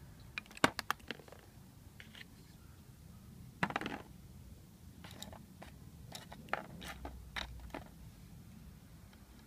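Small alternator parts clicking and tapping on cardboard: a few light clicks, a louder clatter about three and a half seconds in as the plastic brush holder is set down, then a string of light taps and clicks.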